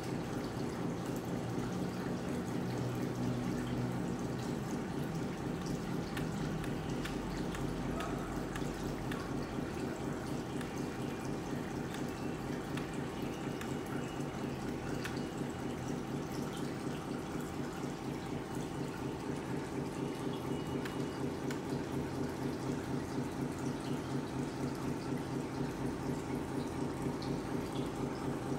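Sound unit in a Tamiya 1/14 Mercedes-Benz Actros 1851 RC truck playing a simulated diesel engine idling steadily, with a fast, even chug through a small speaker.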